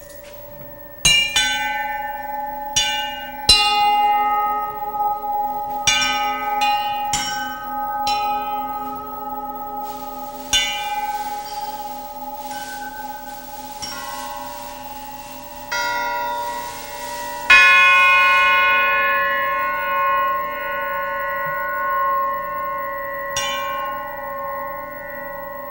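Acoustic metal rods and found-object metal instruments struck one after another, about ten strikes, each ringing on in long bell-like tones that pile up into an overlapping chord. Twice a hissing shimmer rises over the ringing, and the loudest strike comes about two-thirds of the way through.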